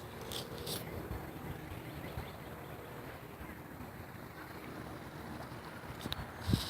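Steady outdoor background rumble and hiss, with a short low thump near the end.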